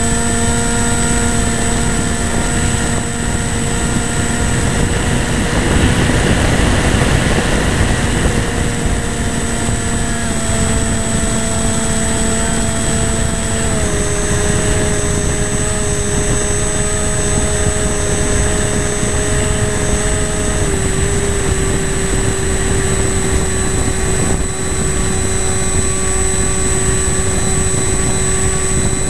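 A radio-controlled model airplane's motor and propeller running steadily, heard from the camera on the plane, with air rushing past. The whine holds a steady pitch and steps down slightly about halfway through, then again about two-thirds of the way through, as the throttle is eased.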